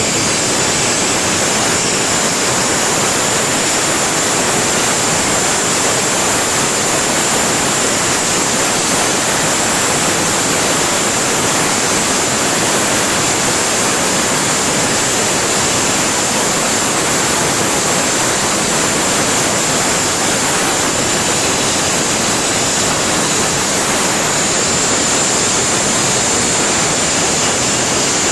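Burner on a glass-blowing double-chuck lathe, its flame burning with a loud, steady rushing hiss.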